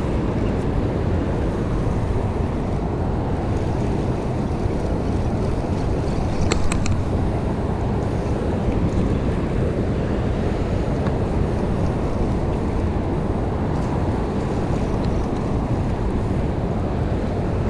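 Steady rush of fast water released through a dam's open gates, mixed with wind buffeting the microphone. A quick cluster of sharp clicks comes about six and a half seconds in.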